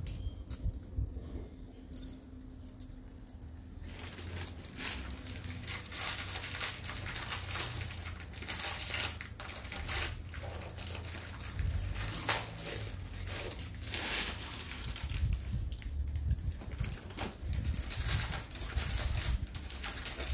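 Glass bangles clinking and jingling against each other as they are handled, in many scattered light clicks over a low rumble of handling.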